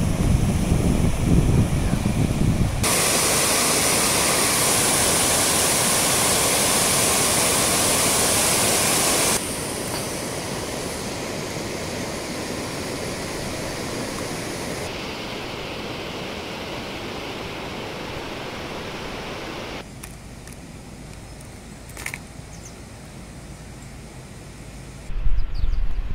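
Wind rumbling on the microphone, then a steady, even rushing hiss that drops in level in sudden steps, with one faint click. The low wind rumble returns near the end.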